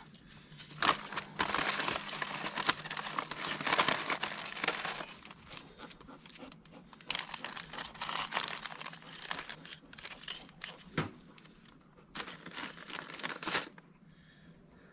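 Crinkling and rustling as a material is handled and crumpled, loudest in the first few seconds, then patchy rustles and a few sharp clicks.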